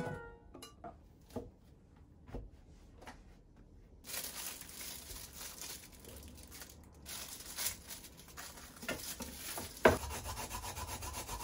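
Dishes being scrubbed at a kitchen sink. A few faint clinks come first, then from about four seconds in a steady scratchy rubbing of many quick strokes, with one sharper knock near the end.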